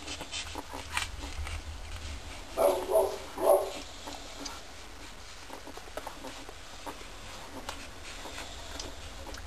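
Two-week-old boxer puppy giving three short, squeaky cries in quick succession, about two and a half to three and a half seconds in, over faint scattered scuffling clicks.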